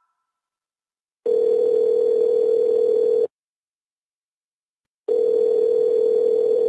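Telephone ringback tone heard by the caller: two steady rings of about two seconds each, about two seconds apart, the sign that the called phone is ringing and has not yet been answered.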